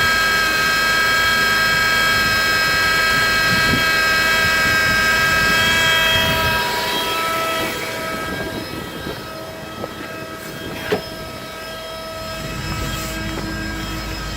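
2001 Honda Civic's four-cylinder engine running at idle, a steady whine of many tones. About eight seconds in it becomes quieter, and a single sharp click sounds a few seconds later.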